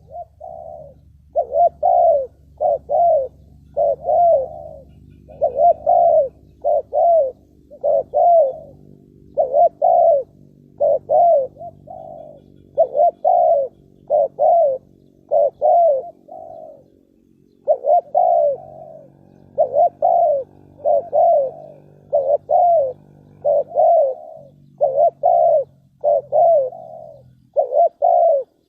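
Spotted dove cooing over and over: short rising-and-falling coos in quick runs, about two a second, with a brief pause partway through. A faint steady low hum sits underneath.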